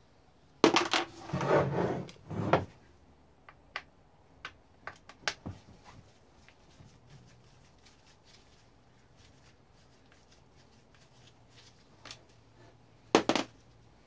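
Husqvarna 357 chainsaw being handled and tipped up on a workbench: a clatter of knocks lasting about two seconds near the start, then scattered light clicks of parts and tools, and another short knock near the end.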